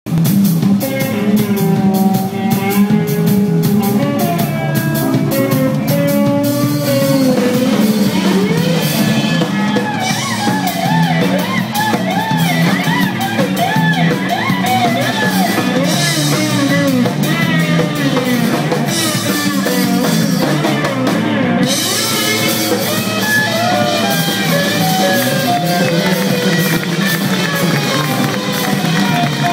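Loud, continuous music with a drum beat and several overlapping melodic lines.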